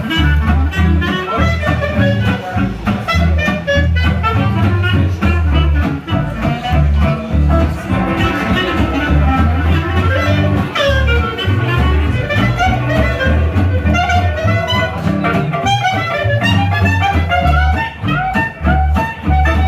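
Live swing jazz from a small string band: upright double bass walking steady notes under guitar, with a lead melody line that slides in pitch.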